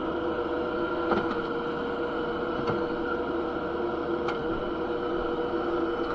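Kubota SCL1000 stand-on skid steer's diesel engine running at a steady speed, with a few faint clicks about a second and a half apart.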